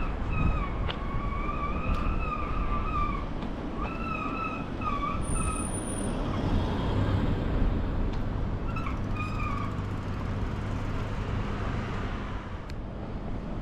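Steady road traffic noise. A wavering high-pitched whine comes and goes through the first half and returns briefly later.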